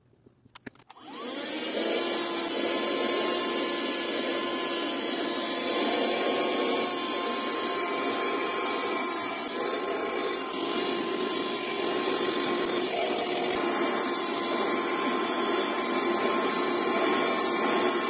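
Piranha PVC-4005 12-volt handheld car vacuum switched on about a second in, its small motor spinning up and then running steadily with a constant whine as it is passed over cloth seat upholstery.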